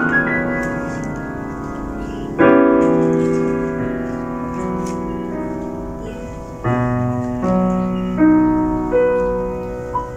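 Steinway grand piano played solo. A rising run ends as it opens. About two seconds in comes a loud chord that is held and slowly dies away, then another chord past the middle, followed by further chords about a second apart.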